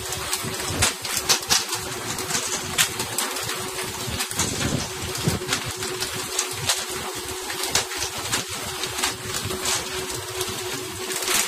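Boat engine running steadily with an even hum, over a hiss of water and wind, with irregular sharp knocks scattered throughout.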